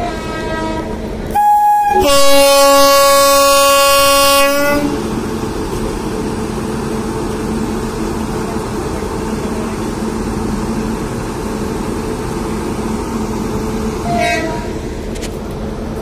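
Indian Railways WAP-7 electric locomotive sounding its air horn: a short loud blast about a second and a half in, then a longer chord-like blast lasting almost three seconds. After that the train runs past with a steady rumble, and a brief horn toot comes near the end.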